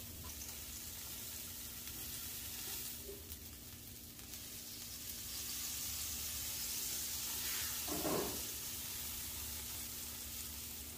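Smash burger patties sizzling on a Blackstone flat-top griddle, the sizzle growing louder about halfway through as the melting dome is lifted off them.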